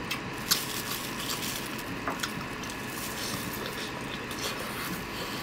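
Wet squishing and sucking as cooked sea snails are handled and eaten, with a few sharp clicks.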